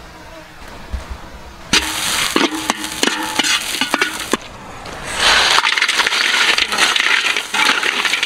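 A metal spatula scraping and stirring in a large metal wok, first through a frying spice paste and then through river snails in their shells, which clatter against the metal. The stirring starts nearly two seconds in, pauses briefly around the middle, then comes back louder and denser.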